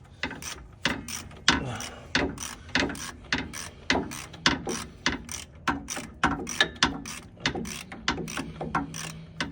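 Hand ratchet wrench turning out a 10 mm brake caliper bolt, its pawl clicking in quick regular strokes, about three clicks a second.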